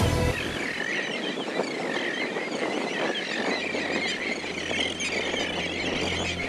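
A flock of black skimmers calling, many short calls overlapping in a continuous chorus over the hiss of surf. Background music cuts off just after the start.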